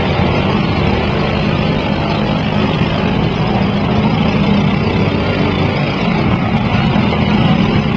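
Riding lawn mower engines running steadily.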